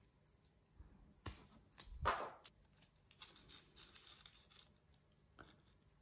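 Black electrical tape being pulled off the roll and torn into strips, with hand-handling noise. It comes as a few short, faint rips and rustles, the loudest about two seconds in.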